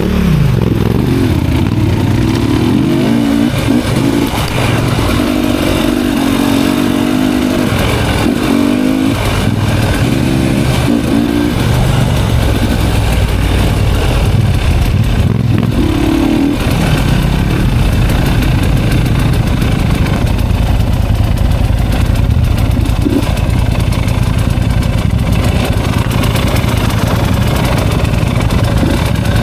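Enduro motorcycle engine running loud and continuously, its revs rising and falling as it works up a dirt hill climb.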